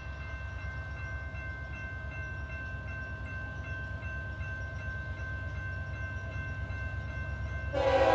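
Low steady rumble of an approaching CSX diesel freight train, then the lead locomotive's air horn starts a loud blast just before the end.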